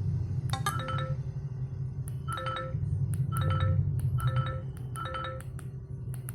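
Music: a melody of short, bright chime-like notes repeating about once a second over a steady low bass.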